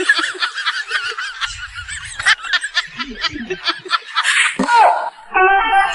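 Repeated sly snickering and giggling laughter, ending in a short quick-pulsed cackle.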